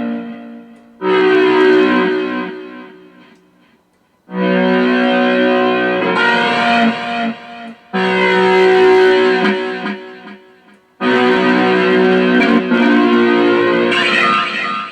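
Guitar played through effects: chords are struck about four times, a few seconds apart, and each is left to ring out and fade, with a sweeping effect in the tone.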